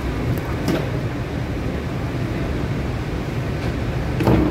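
Cabin noise of a straddle-type monorail car, a steady low rumble as the train pulls into a station. There is a faint click under a second in and a short, louder knock near the end.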